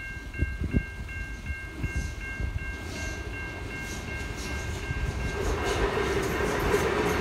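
Safetran Type 3 electronic level-crossing bell ringing fast, about three dings a second, warning of an approaching train. About five seconds in, the noise of a passenger train passing over the crossing swells and covers the bell.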